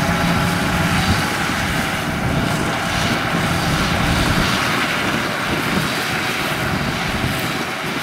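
Yanmar AW82V rice combine harvester running steadily: its diesel engine and machinery give an even, unbroken mechanical noise.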